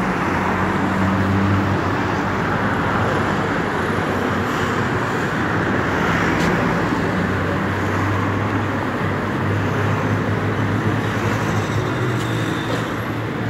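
City street traffic: a van and then a pickup truck drive through an intersection, their engines humming over a steady background traffic noise.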